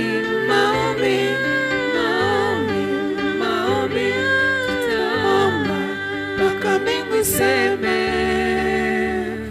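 Gospel worship song: several voices singing together over sustained low bass notes.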